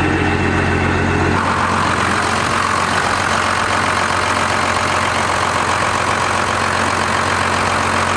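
First-generation Dodge Ram's 5.9 L 12-valve Cummins inline-six diesel idling, so loud, through an axle-dump exhaust. About a second and a half in, the deep steady exhaust drone drops away and the harsher sound of the engine itself takes over at the same level.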